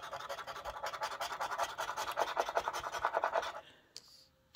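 Rapid, rhythmic scraping as the coating is scratched off a scratch-off lottery ticket, stopping about three and a half seconds in.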